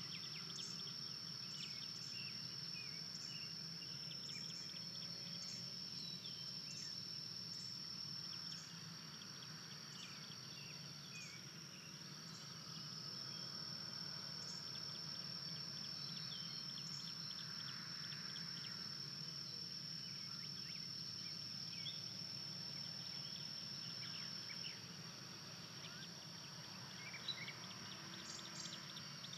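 Outdoor ambience led by a steady, high-pitched insect trill that breaks off for a few seconds near the middle and stops again near the end. Scattered bird chirps and calls sit behind it.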